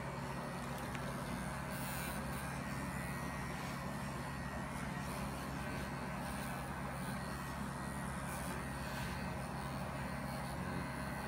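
Electric animal clippers running steadily with a low, even hum as they shear the wool on a German angora rabbit's leg.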